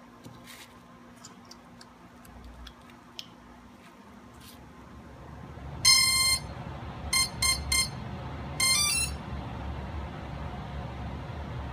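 Power-up beeps from a Quanum Nova / Cheerson CX-20 quadcopter's electronics as its flight battery is connected. A few faint clicks come first; then, about six seconds in, one long beep, three short beeps and a quick rising run of tones. This is the drone's start-up tone sequence.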